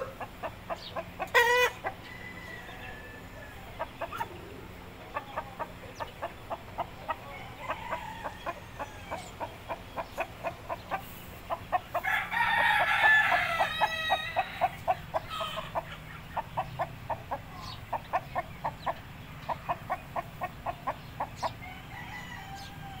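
Columbian Wyandotte rooster clucking in a long run of short clucks, about three a second, with a louder crow about halfway through.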